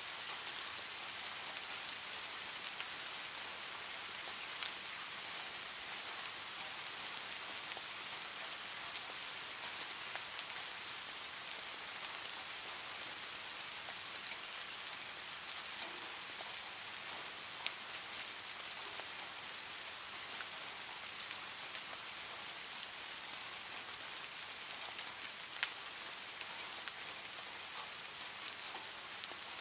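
Steady rain falling, an even hiss of many drops, with a few sharper single drop hits standing out now and then.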